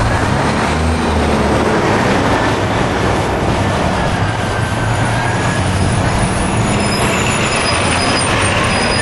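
A train running by, with a loud, steady rumble and thin, high wheel squeals that grow clearer near the end.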